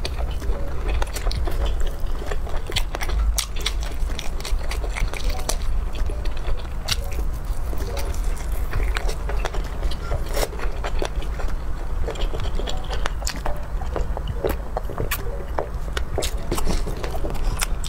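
Close-miked chewing of a fish-roe pouch, with many short wet mouth clicks and smacks over a steady low hum.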